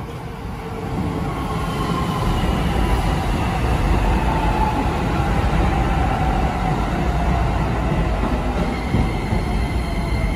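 Shin-Keisei Line electric train pulling into the station and slowing, with the rumble of its wheels on the rails. Its motor whine falls steadily in pitch as it brakes.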